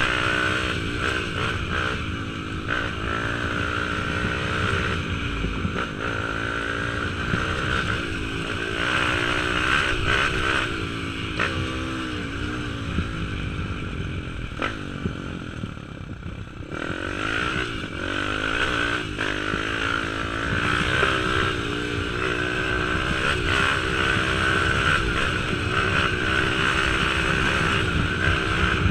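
YCF Bigy pit bike's new Daytona 190 single-cylinder four-stroke engine being ridden on light throttle while it is run in, its pitch rising and falling with the throttle. Just past halfway it eases off briefly, then picks up again and runs steadier.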